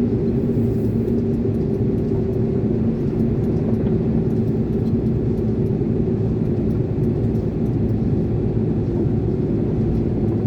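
Iveco concrete mixer lorry's diesel engine running, heard inside the cab: a steady drone with a constant hum and low rumble.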